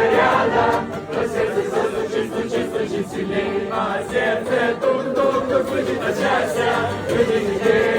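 A group of voices singing a song together, continuing without pause.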